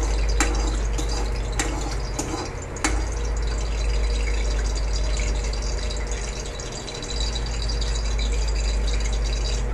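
Ghee heating in a kadhai on a gas burner, giving a steady sizzle that can be heard as it gets hot. A few sharp clicks of a steel spoon against the pan come in the first three seconds.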